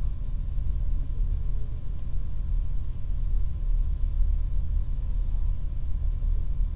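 Steady low rumble with no speech, with a faint tick about two seconds in.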